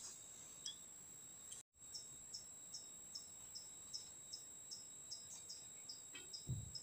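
Faint insect chirping, short high chirps repeated about three or four times a second, over a steady faint high-pitched hum. The sound cuts out briefly about a second and a half in, and a brief low thump comes near the end.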